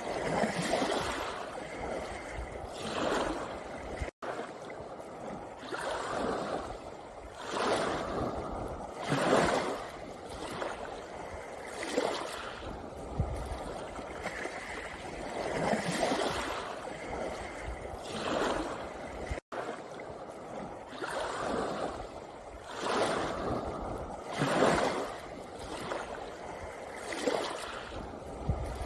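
Small sea waves washing in over a pebble shore, surging every two to three seconds. The sound cuts out for an instant twice.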